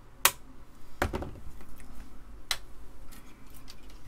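Several sharp clicks and knocks of tools and parts handled on a workbench, the loudest just after the start and a heavier knock about a second in, with lighter ticks near the end.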